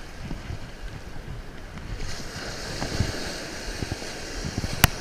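Surf washing up the beach, its hiss swelling about two seconds in, with wind rumbling on the microphone. A single sharp click near the end.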